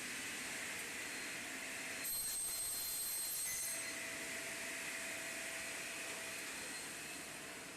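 Steady machine noise with faint steady tones. A thin, very high-pitched whine joins in for about a second and a half near the middle.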